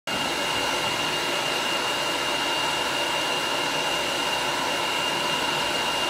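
Hair dryer blowing steadily: a constant rush of air with a thin, steady high whine.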